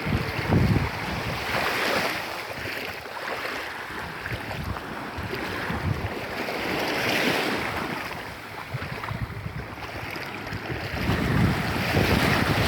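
Surf washing onto a sandy beach, swelling and easing about every five seconds, with wind buffeting the microphone in low rumbling gusts.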